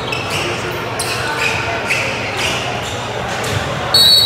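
Basketball being dribbled on a gym floor, a thud about every half second, over crowd voices. Near the end a referee's whistle blows, loud and held.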